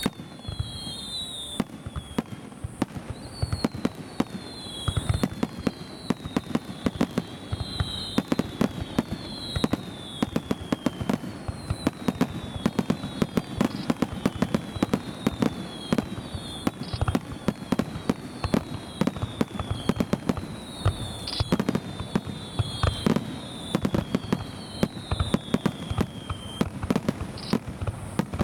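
Fireworks display: aerial shells bursting in a rapid, continuous run of bangs and crackles, with repeated falling whistles above them.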